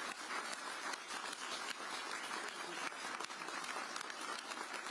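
A crowd applauding, with many hands clapping in a dense, steady patter.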